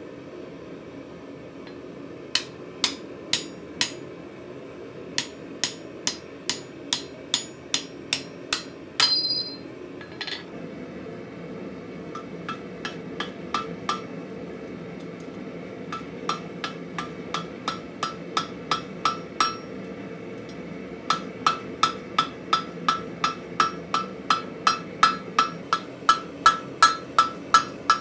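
Hand hammer striking hot mild steel on the anvil horn in runs of even blows, about two to three a second, with the anvil ringing on each strike. The blows are lighter in the middle stretch and come harder and faster near the end.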